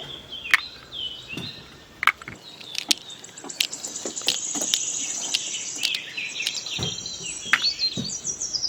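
Small birds chirping and twittering in quick, high, repeated notes that grow busier after the first few seconds, with a few sharp clicks scattered through.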